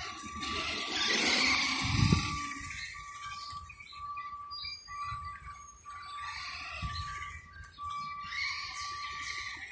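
A steady electronic beep repeating about one and a half times a second throughout. Over it, about a second in, comes a louder rushing noise with a thump as the Traxxas Stampede RC monster truck drives close by.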